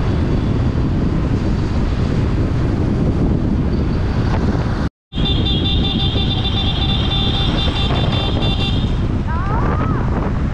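Steady wind and road noise from riding a motorcycle at speed. The sound cuts out for a moment about five seconds in. After that a high, steady horn-like tone sounds for about three seconds.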